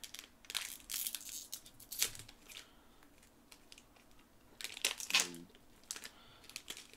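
A trading-card booster pack wrapper being torn open and crinkled by hand, in several short rustling tears, the loudest about five seconds in.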